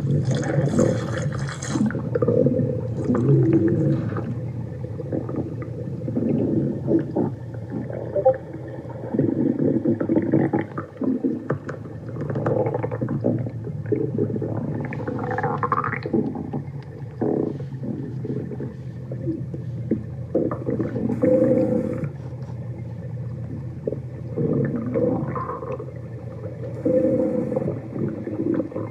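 Severe stomach growling: long, low rumbling growls with gurgles and a few higher rising groans, going on without a break.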